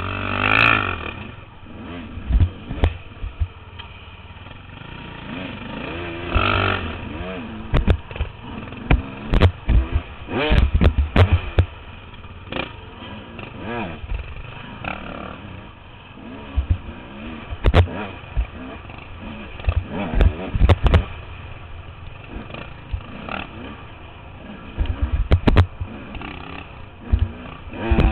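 Off-road dirt bike engine revving up and down at low trail speed, with frequent sharp knocks and clatter as the bike jolts over rocks and roots.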